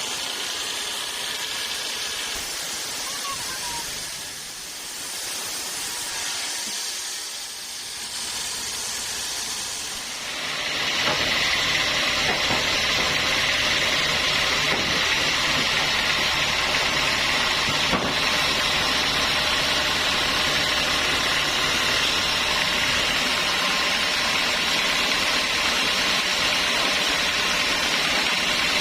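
Sawmill saw running with a steady, hissing noise, becoming louder and harsher about eleven seconds in and holding there.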